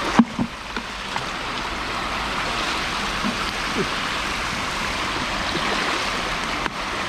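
Steady rush of flowing creek water, with a short knock just after the start.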